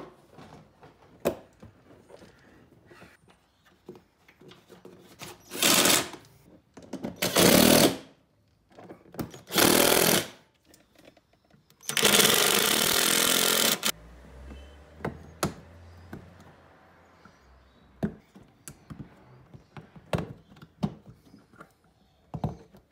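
Ozito cordless impact driver running in four short bursts, the last and longest about two seconds, driving in the fasteners of a plastic wheel-arch liner. Light clicks and knocks of the liner being handled come between the bursts.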